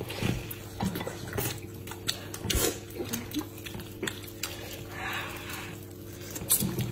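Gnawing and tearing meat off a large bone: wet chewing with sharp clicks of teeth on bone, and a short stretch of sucking about five seconds in. A steady low hum runs underneath.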